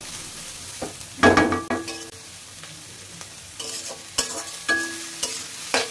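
Grated carrots and green chillies sizzling in hot oil in a wok, with a spatula stirring and scraping them against the pan in repeated clattering strokes, loudest about a second in.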